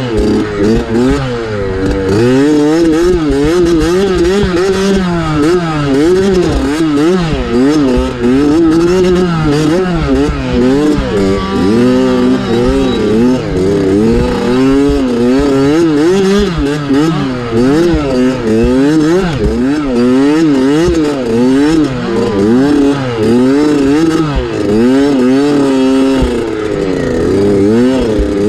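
Dirt bike engine ridden hard over rough ground, its revs rising and falling every second or so, with no pause.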